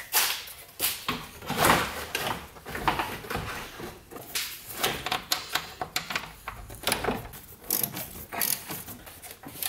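Irregular clicks, knocks and rattles of hand tools and metal and plastic parts being handled in a car's engine bay.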